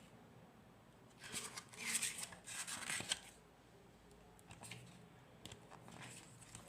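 Packaging being handled: a cluster of rustling and scraping about a second in, lasting a couple of seconds and ending in a sharp click, then a few faint clicks.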